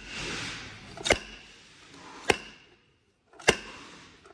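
Slide hammer pulling the pump cover out of a Chevrolet Silverado 8-speed automatic transmission case: the steel weight is slammed against its stop three times, about a second apart, giving sharp metallic clacks that each ring briefly.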